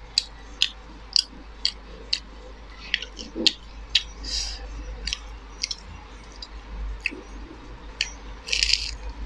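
Close-miked chewing of fried momo dumplings: sharp wet mouth clicks about twice a second. A louder noisy bite comes near the end as another momo goes into the mouth.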